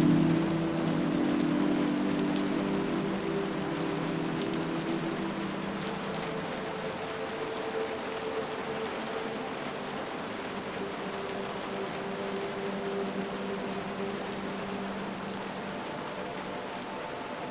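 Steady rain falling, an even hiss of drops. Under it a low hum of several steady tones, loudest at the start, fades away over the first six seconds or so.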